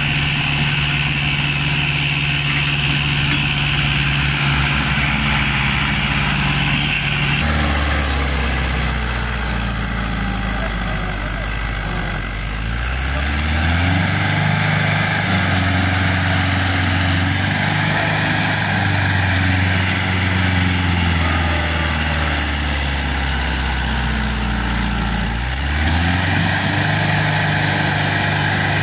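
Mahindra tractors' diesel engines labouring under heavy load, revving up and falling back several times as they strain to drag a soil-loaded trolley that is bogged in soft ground.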